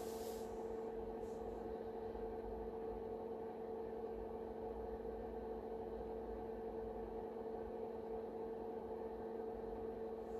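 Steady electrical hum with a constant mid-pitched tone, from the running IBM PC 5150 and its 5151 monitor.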